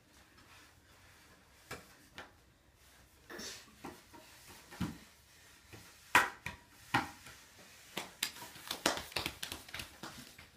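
Toddlers' hands, knees and bodies knocking against a wooden climbing triangle and its slide board: irregular knocks and taps, the loudest about six seconds in, with a quick run of them near the end.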